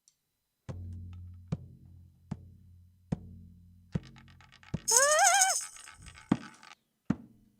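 Haunted-house sound-effect track: a low sustained drone with a sharp knock or drum hit about every 0.8 seconds, and about five seconds in a short wavering high-pitched cry over a hiss.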